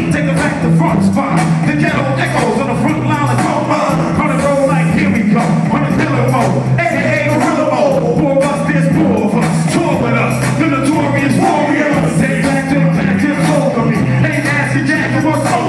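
Live hip-hop music played loud through a concert PA: a repeating bass line and drum beat, with voices over it.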